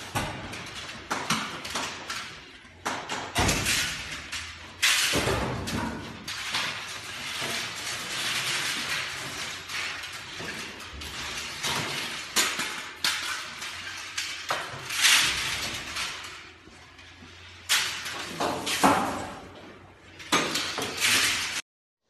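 Lengths of scrap copper pipe and rod being thrown onto a pile, clattering and clanking at irregular intervals with a few louder crashes.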